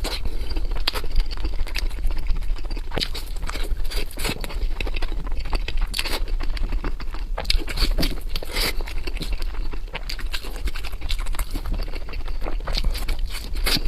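Close-miked eating: a person chewing food, with many quick, irregular wet clicks and smacks of the mouth.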